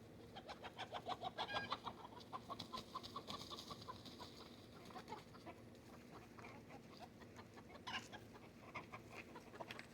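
Backyard hen clucking faintly. A quick run of short clucks, several a second, fills the first few seconds, then thins out to scattered clucks.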